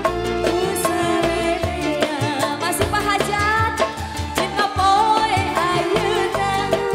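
Live dangdut music: a woman sings a wavering, ornamented melody into a microphone over a band with steady bass and regular drum beats.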